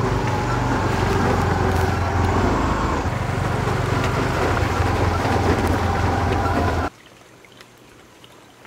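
Small motor scooter engines running as two scooters ride through standing water on a muddy road. The sound is steady and cuts off suddenly about seven seconds in.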